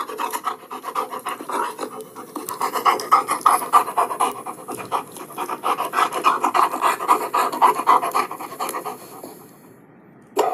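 A dog panting fast and steadily, in a long run of quick breaths that stops about nine seconds in.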